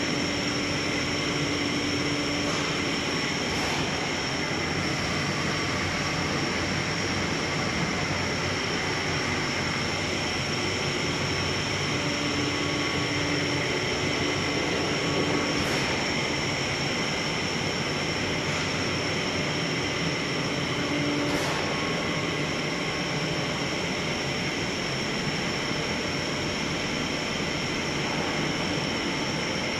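Large-diameter PVC pipe extrusion line running: a steady dense machine noise with a constant high whine, a lower hum that comes and goes, and a few faint clicks.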